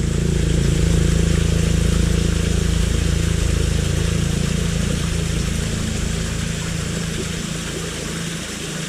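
A small engine running steadily, a low even hum that eases off slightly near the end.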